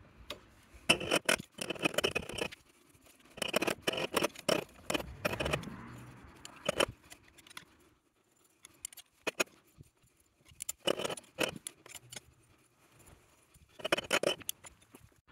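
Hand tools clinking and scraping against the clutch hub on a Tomos moped's crankshaft, in several bursts of metallic clatter with quiet gaps between, and a few sharp knocks near the end. This is the work of freeing a clutch jammed on the crankshaft.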